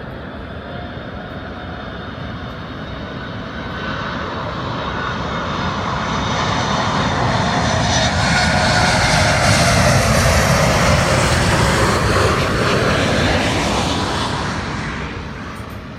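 Boeing 747 freighter's jet engines passing low on landing approach: a rushing noise and whine build up, are loudest about ten seconds in, then fade, the whine dropping in pitch as the plane goes by.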